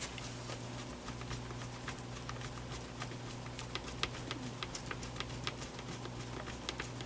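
A small screw being driven by hand into a plastic fan housing: a run of light, irregular clicks and ticks, over a steady low hum.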